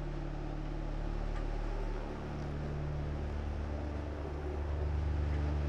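A steady low drone of several held deep tones with a soft hiss above it; the deep tones shift to a new pattern about two seconds in.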